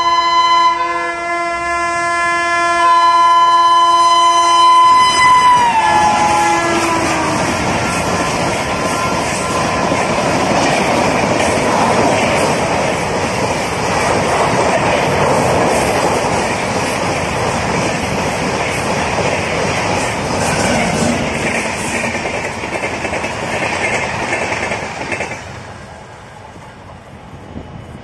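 Electric locomotive horn of a push-pull Rajdhani Express sounding a long multi-tone blast as the train approaches at speed, its pitch dropping about five seconds in as the locomotive passes. Then the rush and clatter of the LHB coaches' wheels over the rails, dying away near the end as the train recedes.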